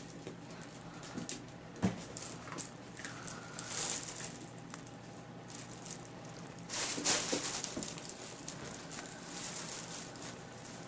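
A puppy scrambling inside a fabric play tunnel: irregular rustling of the tunnel fabric and scratching of paws. There is a sharp knock about two seconds in and a louder rustle about seven seconds in.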